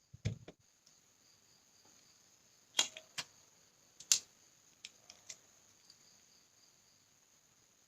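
Scattered sharp clicks and taps of small plastic parts of a Huawei 4G modem being handled, the loudest around three and four seconds in, over a faint steady high hiss.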